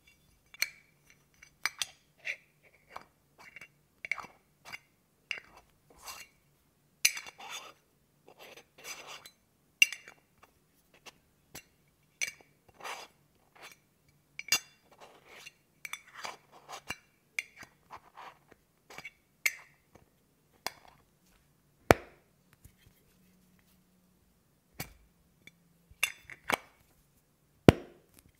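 Nails tapping on a small metal Vaseline tin, close to the microphone: an irregular run of sharp taps, each with a short metallic ring, and a few louder knocks near the end.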